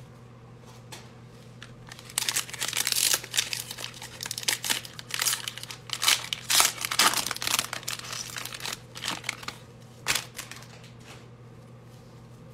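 Foil wrapper of a 2020 Playoff football card pack being torn open and crinkled by hand, a run of crackling rustles starting about two seconds in and dying away a couple of seconds before the end, over a steady low hum.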